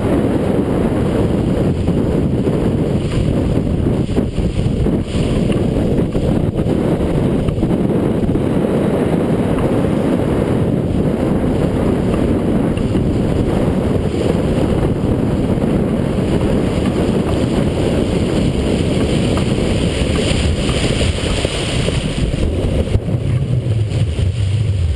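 Strong wind buffeting the microphone of a camera mounted aboard a heeling sailboat, a loud, steady rush, mixed with the wash of the hull driving through choppy water.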